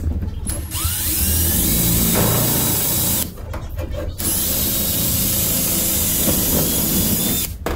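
DeWalt cordless drill boring through aluminum angle framing in two long runs, with a short pause about three seconds in.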